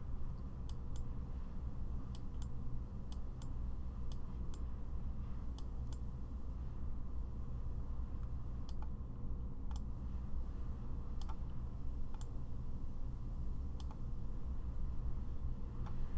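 Computer mouse clicks, single sharp clicks at irregular intervals, sometimes two in quick succession, over a steady low hum.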